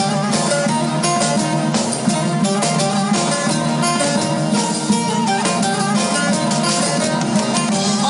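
Live band playing an instrumental passage of a Turkish folk song: plucked acoustic guitar and saz over keyboard, at a steady full level with no singing.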